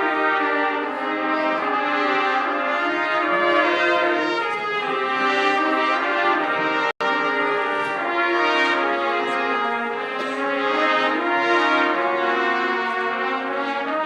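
A marching band's brass section playing loud held chords that change every second or so. The sound cuts out for an instant about seven seconds in.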